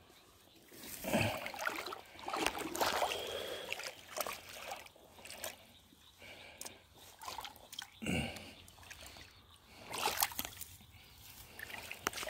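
Feet wading through shallow river water, splashing and sloshing in irregular steps, with a few louder splashes about a second in, around two to three seconds in and again near eight and ten seconds.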